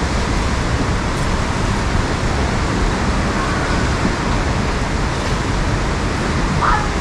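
Steady rushing noise of surf breaking on a beach, even throughout with no distinct events.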